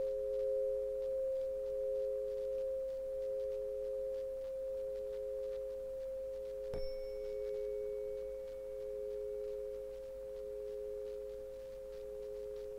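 Background drone of two steady pure tones sounding together, one a little higher than the other, the lower one slowly swelling and fading. A soft click about seven seconds in brings in a faint, high, thin tone above them.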